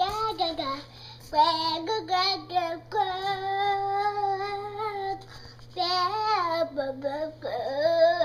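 A young child singing: short phrases that rise and fall, then one long held note in the middle, with brief pauses between the phrases.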